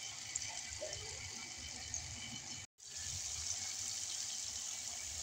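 Onion–tomato masala and chicken sizzling in hot oil in a nonstick wok, a steady hiss with faint crackle as the masala is fried down (the bhuna stage). The sound cuts out for a moment about halfway through.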